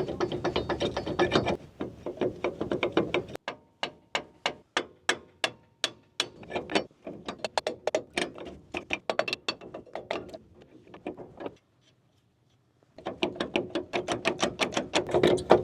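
Hand socket ratchet clicking as bolts are worked loose: a fast run of clicks, then slower strokes of separate clicks, a short pause, then fast clicking again.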